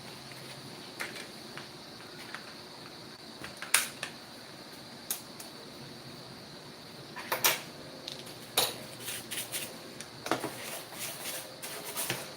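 Scattered light clicks and knocks of small laptop parts being handled and fitted, with sharper knocks about four seconds and seven and a half seconds in and a run of smaller taps near the end, over a faint steady high whine.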